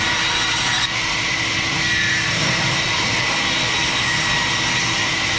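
Sawmill band saw running and cutting through wood: a loud, steady machine noise with a high whine held throughout.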